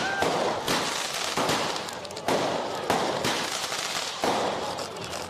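Small aerial fireworks going off in a rapid series: about six or seven sharp bangs, roughly one every half second to second, each followed by a short crackling hiss as the shells burst into glittering sparks.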